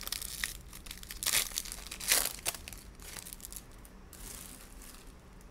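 Foil wrapper of a 2022 Prizm WWE hobby card pack being torn open and crinkled by hand. The loudest rips come a little after one second and about two seconds in, and the crinkling dies down after about four seconds.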